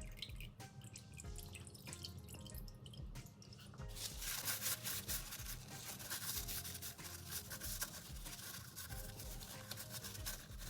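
Background music with a steady beat. About four seconds in, a loud, even rushing hiss starts, like a liquid splashing or spraying, and it fades out about four seconds later.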